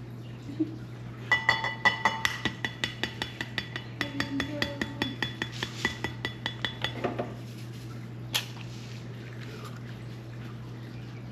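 Eggs being beaten with a utensil for an egg wash: rapid clinking against a ringing bowl for about six seconds, then stopping. A single click follows, over a steady low hum.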